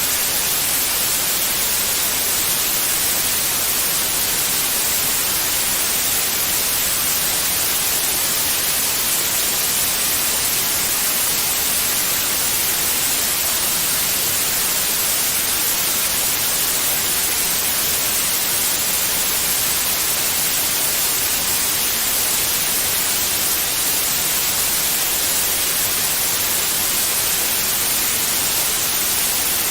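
Steady white noise: an even, unchanging hiss with most of its energy in the high frequencies, played as a baby-soothing sound.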